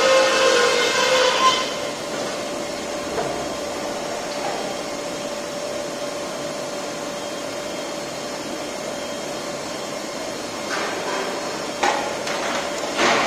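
Flying cold saw cut-off on an ERW steel tube mill running: a loud ringing stretch with several steady tones fades away in the first second and a half, then a steady machine hum with a faint whine, and a few sharp knocks near the end as the noise builds again.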